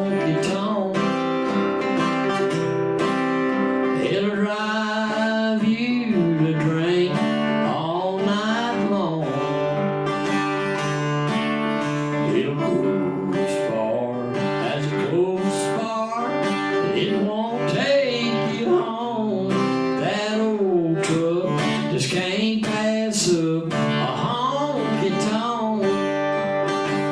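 A man singing a country song while an acoustic guitar is strummed and picked behind him.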